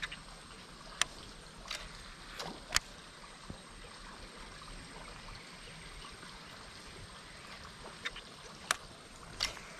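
Water lapping and trickling against the hull of a small fishing boat: a steady hiss with a handful of sharp slaps or clicks at irregular moments.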